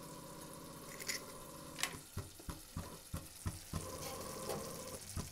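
Thick tomato-onion masala gravy bubbling in a pan, giving a run of irregular soft pops from about two seconds in, over a steady low hum.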